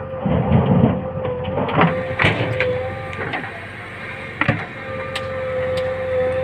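Heavy diesel machinery running with a steady whine, with a brief low rumble about half a second in and scattered knocks and clatters.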